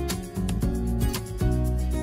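Instrumental background music with a steady beat and a strong bass line.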